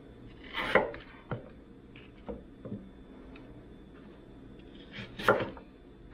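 Light knocks and clatters of things being handled and set down, with two louder ones about four and a half seconds apart.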